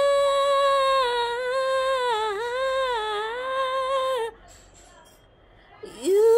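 A woman singing unaccompanied, holding one long high note for about four seconds with small dips in pitch. After a pause of about a second and a half she scoops up into the next phrase near the end, with a quick wavering run.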